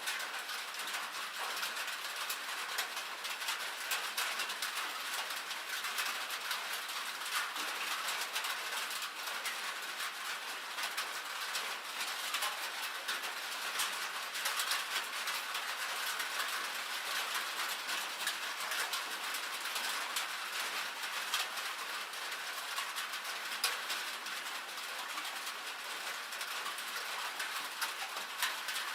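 Rain and hail falling on a metal roof: a dense, steady stream of small sharp ticks.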